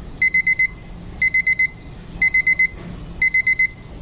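Tinload quartz alarm clock's electronic beep alarm going off: clusters of four quick, high-pitched beeps, one cluster about every second, over a steady background hiss.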